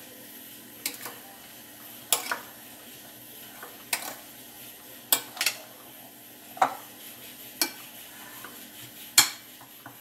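A spoon stirring mashed potato salad in a glass bowl, clinking sharply against the glass about ten times at irregular intervals.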